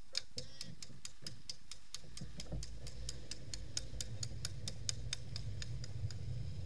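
Longboard wheels rolling on asphalt: a low steady rumble that sets in about two seconds in as the ride gets under way. Over it runs a rapid ticking, about four ticks a second, that fades near the end.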